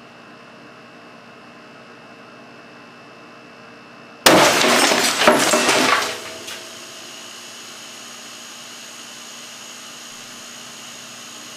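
Air compressor humming steadily. About four seconds in, a sparkling-wine bottle pressurised to around 300 psi bursts with a sudden loud bang and a crash of shattering glass and debris lasting about two seconds. The compressor hum carries on afterwards.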